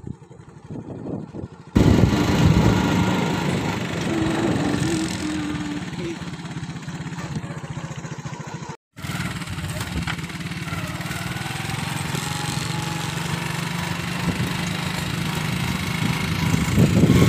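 Small motorcycle engine running steadily while riding, with wind rushing on the microphone. It gets louder about two seconds in and cuts out briefly about nine seconds in.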